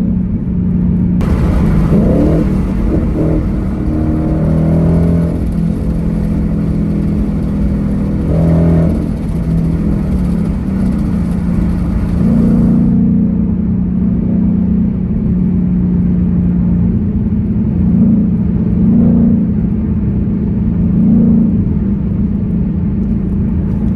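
2021 Ford Mustang GT's 5.0 L V8 running under way on an H-pipe with the factory mufflers, a steady deep exhaust note whose pitch rises and falls a little several times with the throttle.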